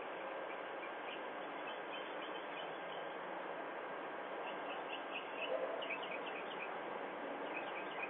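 Small birds chirping in scattered clusters of short high calls over a steady hiss, heard through a video doorbell's microphone, with a brief louder sound about five and a half seconds in.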